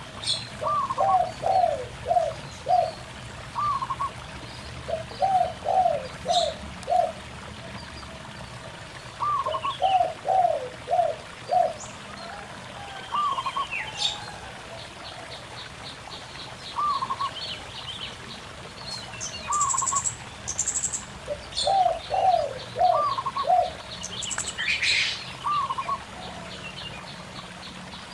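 Zebra doves and spotted doves cooing back and forth. A short two-note coo repeats every two to three seconds, and four times a run of four or five lower coos answers it. Small birds chirp and trill higher up, over the steady rush of a shallow stream.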